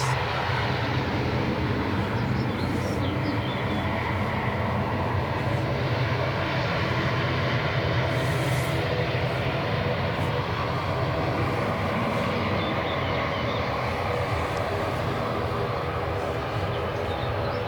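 Aircraft engines running in a steady, unbroken drone at an airport.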